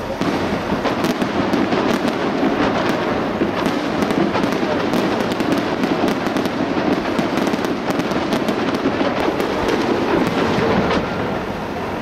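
Fireworks display going off in quick succession: a dense, continuous run of bangs and crackles with no pause.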